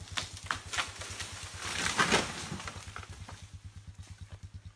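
Leaves and branches of a freshly felled tree rustling and crackling, swelling about two seconds in and then dying away, over a chainsaw idling with a steady low throb.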